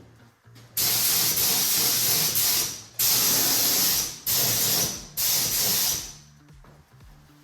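Compressed-air spray gun spraying 2K primer in four bursts of hiss, each starting and stopping sharply as the trigger is pulled and released.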